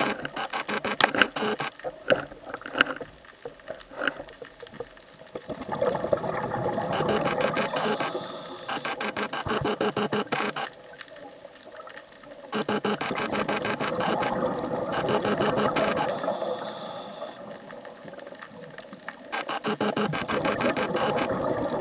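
Scuba diver breathing through a regulator underwater: long crackling rushes of exhaled bubbles come several times, every few seconds, with quieter gaps between them, and there are a few sharp clicks in the first few seconds.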